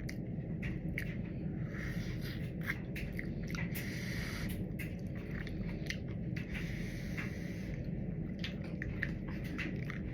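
Close-miked chewing and eating of a soft red bean dessert, with many small wet mouth clicks over a steady low hum.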